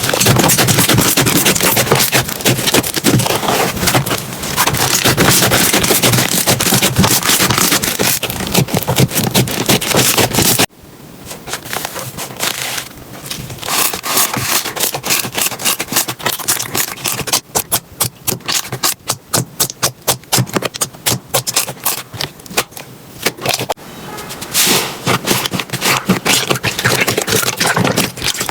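Slime being squeezed, poked and stretched by hands, making dense crackling, popping and sticky clicking sounds. About ten seconds in it cuts to a quieter clip, which has a quick run of clicks in the middle and thicker crackling again near the end.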